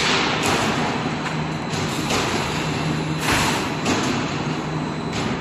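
Gabion mesh edge-wrapping machine running: a steady hum with loud, irregular knocks every second or so.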